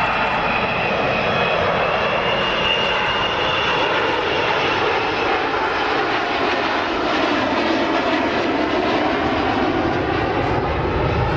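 Avro Vulcan XH558's four Olympus turbojets running during a low display pass, a loud steady jet noise. A high whine is heard over it for the first few seconds, then fades.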